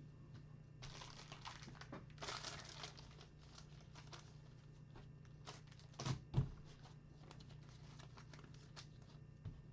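Faint crinkling and rustling of trading cards being handled, with scattered light clicks and two soft knocks about six seconds in.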